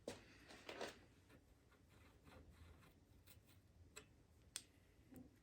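Near silence: low room tone with a few faint, sharp clicks and ticks.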